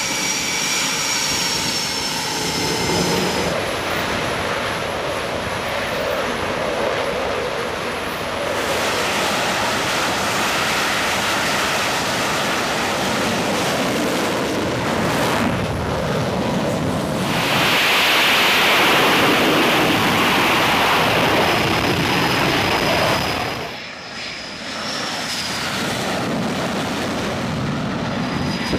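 F/A-18 jet engines running on a carrier flight deck: a loud, continuous rushing roar that shifts abruptly several times. It swells louder for about six seconds past the middle, then drops off suddenly.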